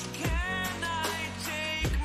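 Background pop music with a drum beat and a gliding melody line.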